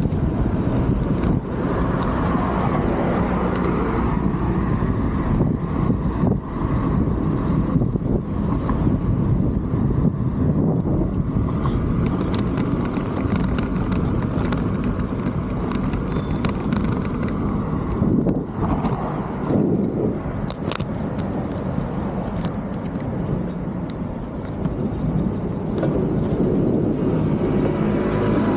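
Road traffic heard from a moving bicycle in city streets: cars passing over a steady low rumble of wind and road noise, with a few light clicks.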